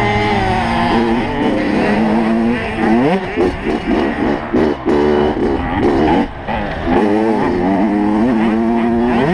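85cc two-stroke motocross bike engine heard from on board, revving hard and rising in pitch over and over, with brief drops between the rises as the throttle is shut and the gears change. Wind rushes over the microphone.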